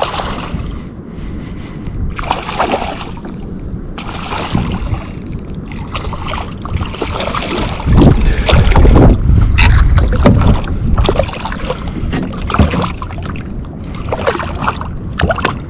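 Wind rumbling on the microphone aboard a kayak, mixed with irregular knocks and water sounds from the boat; the rumble is heaviest about eight to ten seconds in.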